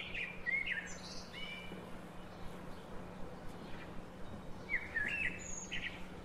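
Songbird singing short chirping phrases, once in the first second or so and again about five seconds in, over outdoor background noise and a faint steady low hum.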